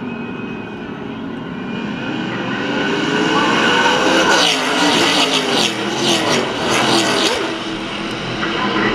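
A pack of NASCAR K&N Pro Series West V8 stock cars racing past at speed. The engine sound builds over the first few seconds, is loudest in the middle as several cars go by with their pitch dropping as each passes, then fades as the pack moves away.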